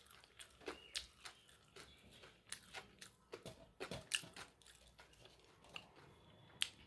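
A person biting and chewing crunchy fried food close to the microphone: a scatter of short, irregular crisp crunches.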